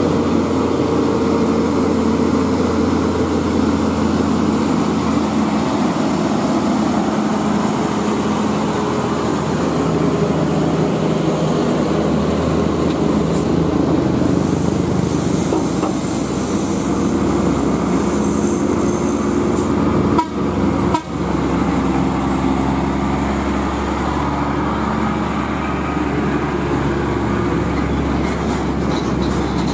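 Heavy diesel trucks labouring under crane loads as they pass close by, the engines running with a steady low note. The sound drops out briefly twice about twenty seconds in.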